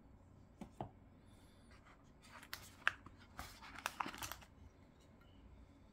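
Product packaging being handled: two light clicks, then about two seconds of crackling and tearing.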